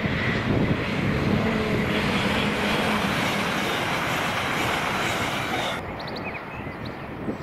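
Express passenger train passing at speed, a loud rush of wheels on rail and air with a steady hum. About six seconds in the sound drops abruptly to a quieter, more distant train rumble, with birds chirping.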